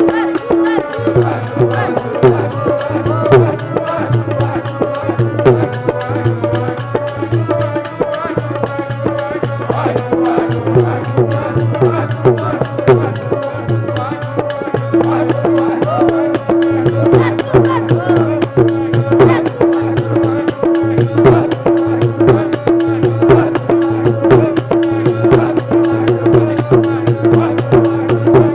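Sikh shabad kirtan: voices singing over a harmonium's held notes, with tabla keeping a fast, steady rhythm.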